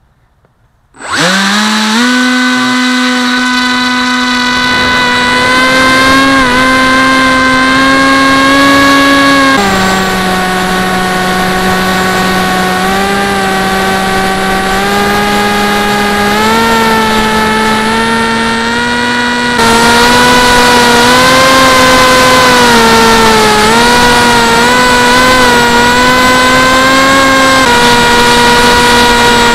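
Electric motor and propeller of a Tuffwing flying wing, heard from its onboard camera. It spins up sharply about a second in, then runs as a loud steady whine that drops in pitch about ten seconds in, rises again near twenty seconds, and wavers a little with throttle.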